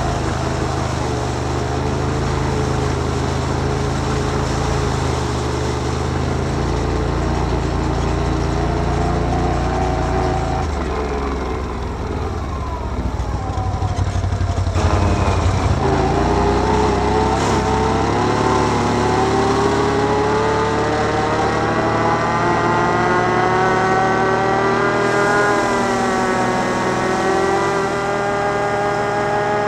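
Can-Am Outlander 1000 ATV's V-twin engine running under way. It eases off about a third of the way in, then climbs steadily in pitch as it accelerates through the second half before levelling off near the end.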